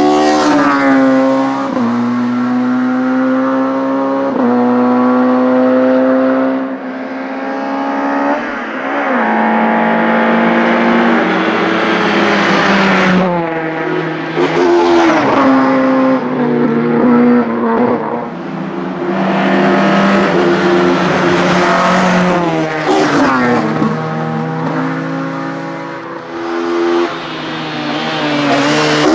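Race-prepared Ford Escort Mk2 hillclimb car with a 16-valve engine of up to 2 litres, run at full throttle. It revs up hard, then drops sharply in pitch at each quick upshift or lift for a corner, several times over.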